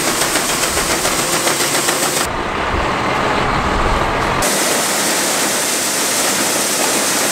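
Grain auger running and shelled corn pouring into a semi's grain trailer: a steady, loud rushing hiss with a fine rattle. For about two seconds near the middle the hiss drops away and a deeper rumble takes over.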